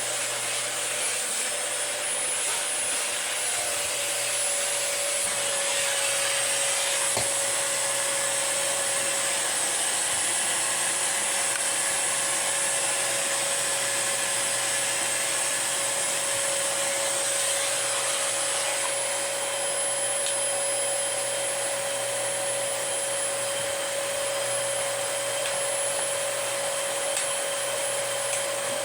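Dyson DC25 Animal upright vacuum cleaner running steadily: a rushing airflow hiss with a steady motor whine.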